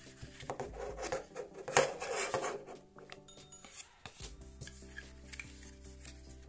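Handling noise from a leather wallet with an aluminium card case: leather and cards rubbing, with a sharp click a little under two seconds in, over steady background music.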